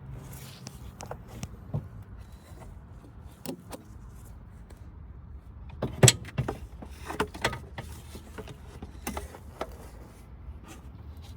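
Scattered clicks and knocks of tools and parts being handled in a car's engine bay, the loudest a sharp knock about six seconds in, followed by a run of smaller clicks.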